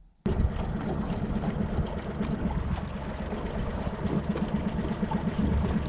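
Yamaha 40 hp outboard motor running steadily, with a low, rapidly pulsing drone; it comes in abruptly a moment in.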